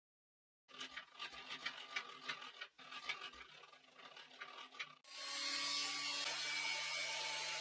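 Clicking and rubbing as the head-height crank of a Makita 2012NB thickness planer is turned by hand. About five seconds in, the planer's motor starts suddenly and runs with a steady hum and noise.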